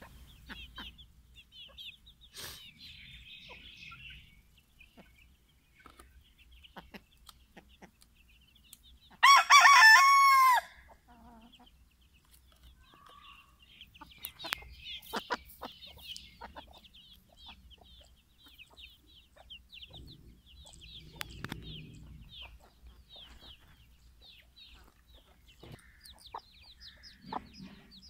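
A rooster crows once, loud and about a second and a half long, about nine seconds in. Around it runs a steady scatter of short high peeps from chicks, with occasional soft clucks from the hens.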